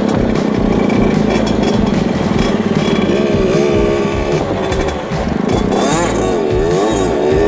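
Mini trail motorcycle engine running while being ridden. Its pitch rises and falls again and again as the throttle is worked, with quick up-and-down revs in the second half.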